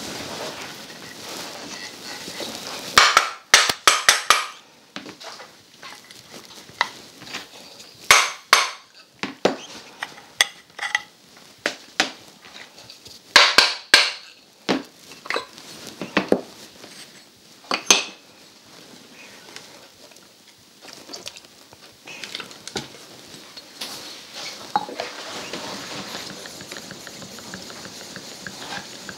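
Japanese woodworking tools and wooden-based sharpening stones being handled and set down on a workbench: sharp knocks and clinks in scattered bunches, loudest about three, eight, fourteen and eighteen seconds in. A softer steady rubbing comes in near the end.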